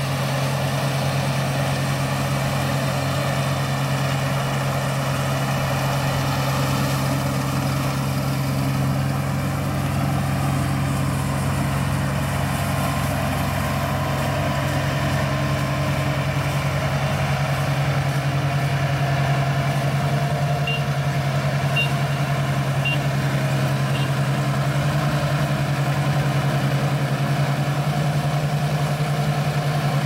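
ISEKI 325 rice combine harvester running steadily as it cuts rice, a constant engine drone with the hum of its machinery. It grows slightly louder about halfway through as the machine draws nearer.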